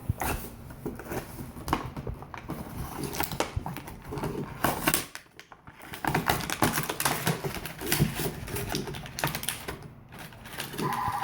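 Hard plastic toy parts clicking and knocking as they are handled, in quick irregular runs of small clicks. A steady tone starts right at the end.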